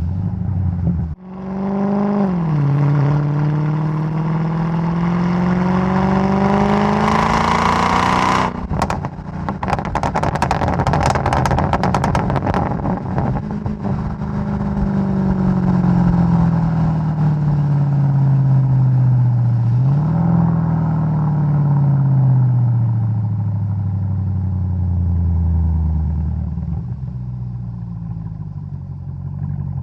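Mercedes-Benz E55 AMG W211's supercharged V8 pulling hard through a gear, its pitch climbing for about six seconds. On lift-off it cuts suddenly into a rapid string of exhaust pops and crackles on the overrun lasting several seconds, from a car tuned for pops and bangs. Then the engine holds steady, revs up briefly once more, and winds down.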